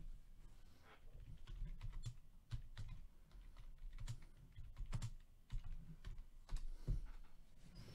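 Faint, irregular typing on a computer keyboard: soft clicks and taps, with a few duller knocks about five and seven seconds in.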